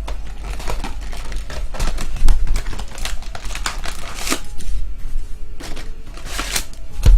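Trading card packs being opened and handled: foil wrappers crinkling and cards flicked through, giving a run of irregular light clicks and crackles.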